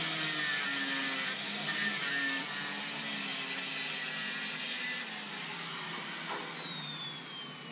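A high-speed electric motor runs with a steady high whine. About five seconds in it is switched off, and the whine falls steadily in pitch as it spins down.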